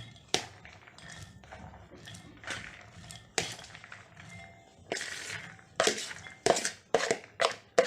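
A spoon knocking and scraping against a bowl as soaked chana dal is spooned in: a run of clinks and thunks with a short ring, coming closer together in the second half.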